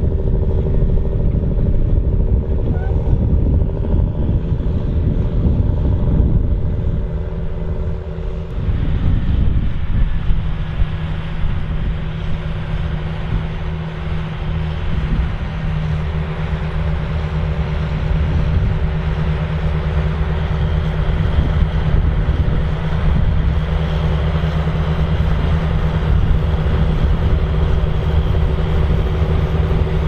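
John Deere 8530 tractor's six-cylinder diesel engine running steadily under the heavy pull of a seven-furrow plough working through the soil. The engine note changes about eight seconds in, then holds steady.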